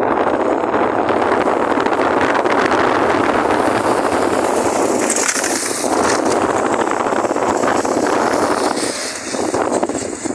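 Steady, loud rushing noise of wind buffeting the microphone while the camera moves along the road. It eases and turns choppy near the end.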